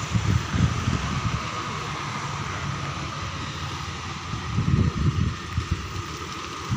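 Wind buffeting the microphone in irregular gusts, strongest about four and a half seconds in, over a steady high hiss.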